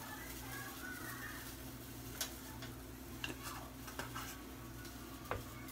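Spice shaker being handled while seasoning chicken: a few faint, separate clicks and taps over a steady low hum.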